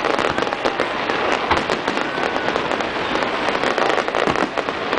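Aerial fireworks shells bursting: a dense run of quick pops and crackles from crackling stars, with a few heavier bangs among them.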